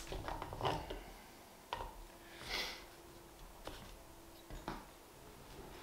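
Quiet handling of a steel combination square and tape measure on a timber board: a few light clicks and knocks and a short scratchy rustle, over a faint steady hum.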